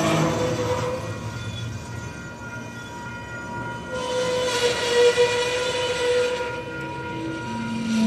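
Freight train of enclosed autorack cars rolling past close by: a rumble of wheels on rail under steady high tones, which swell and are loudest about four to six seconds in.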